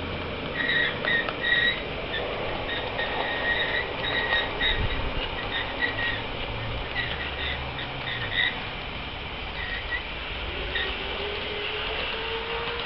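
Small ride-on backyard railway train running around a curve of track, with repeated short high squeaks through most of the sound and a faint rising tone near the end.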